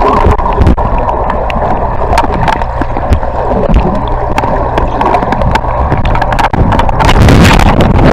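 Water rushing and splashing, with wind buffeting the microphone. The noise is loud and steady, with scattered knocks and splashes through it.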